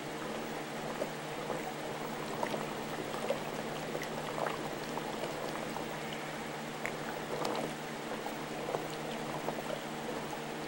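Water bubbling and trickling in an aquarium tank, with scattered small pops, over a steady low hum.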